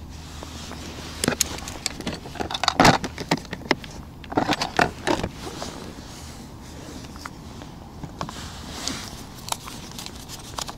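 Small plastic clicks, scrapes and crackly rustling as fishing tackle and a bloodworm box are handled on a plastic ice-fishing tackle box, busiest from about a second in to about five seconds in, then a few scattered clicks.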